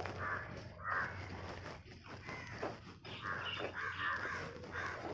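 Crows cawing several times, with a ladle stirring and scraping in an aluminium cooking pot underneath.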